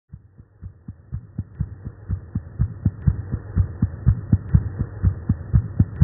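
Recorded human heartbeat: a fast, even rhythm of dull thumps, about four a second, fading in over the first couple of seconds.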